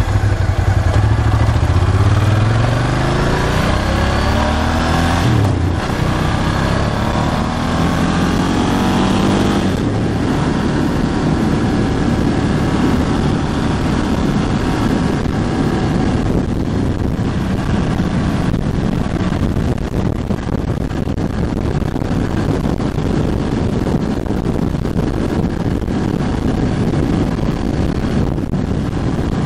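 Ducati Hypermotard 1100S's air-cooled L-twin engine pulling up through the gears, its note rising and dropping at shifts about five and ten seconds in. It then cruises at a steadier note under a constant rush of wind and road noise.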